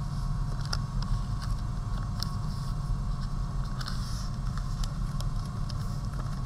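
Newspaper being folded and creased by hand against a tabletop: scattered soft crinkles and light taps, with a brief patch of crinkling about four seconds in. A steady low hum runs underneath.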